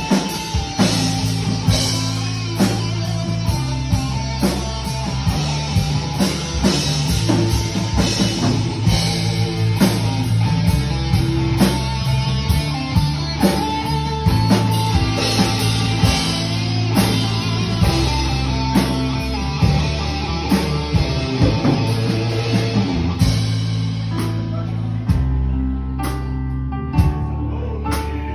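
Live rock band playing an instrumental passage: electric guitars and bass guitar over a drum kit keeping a steady beat.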